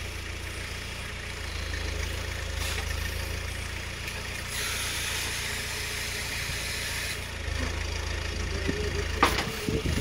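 Small 4x4 tractor's engine running steadily while its hydraulic backhoe digs soil, with a hiss for a few seconds midway as the hydraulics work. A sharp knock near the end.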